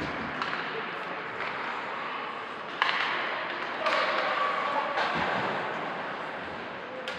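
Ice hockey play in a rink: a few sharp cracks of stick and puck, the loudest about three seconds in, over a steady arena hum with distant shouting voices.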